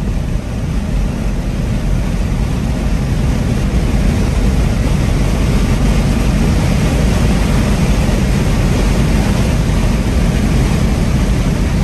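Steady road and wind noise of a car moving at highway speed, heard from inside the car. It grows a little louder over the first few seconds, then holds steady.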